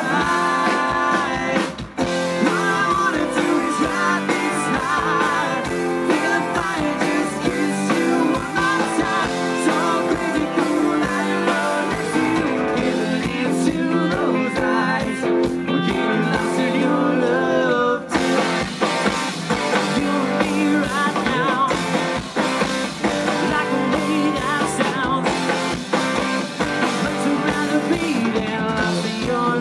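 Live country rock band playing a song, with acoustic guitar, electric bass and drums under a wavering melodic line, and brief dips about two seconds in and near eighteen seconds.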